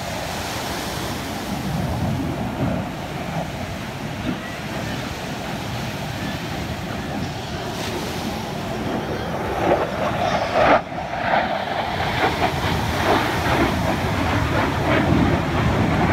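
Distant jet aircraft passing overhead: a steady rushing roar, a little rougher and louder in the second half.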